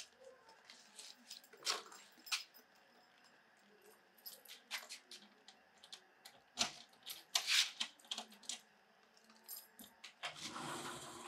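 A woman crying quietly: scattered short sniffs and breathy sobs, with a longer breathy exhale about ten seconds in.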